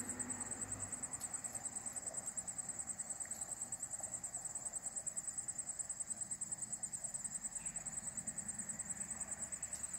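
Insect chirping steadily, heard as a high-pitched trill with a fast, even pulse that goes on without a break.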